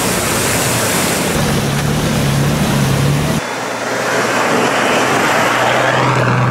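Nissan Patrol SUV driving through a shallow river, water spraying around it over the engine's running. About three seconds in, the sound cuts to the SUV driving along a gravel track, with engine and tyre noise.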